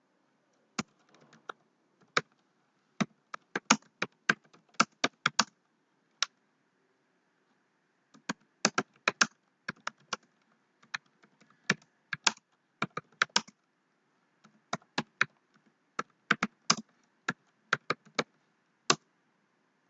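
Typing on a computer keyboard: sharp keystrokes in irregular runs, with short pauses between words.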